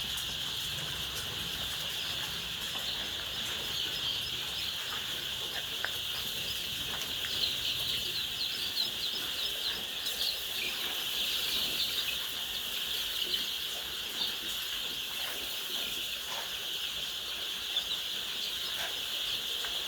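A large flock of chickens calling all at once: a dense, continuous chorus of high peeping and chattering, busiest around the middle.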